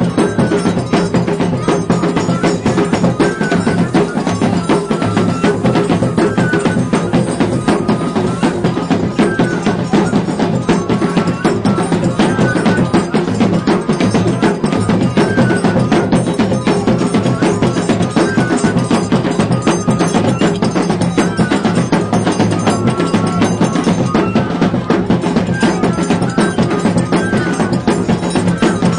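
Live Terno de Reis folk music led by percussion: a fast, dense, steady beat with a short melodic figure recurring over it.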